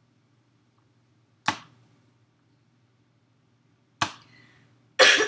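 A woman with bronchitis coughing a harsh, chesty cough. A single cough comes about a second and a half in and another about four seconds in, then a quick run of hacking coughs right at the end.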